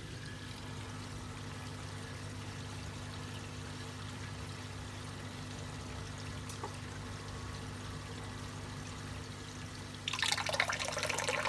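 Steady low hum of the Deltec Twintech's pumps running; about ten seconds in, water suddenly starts pouring and splashing as the unit restarts its flow.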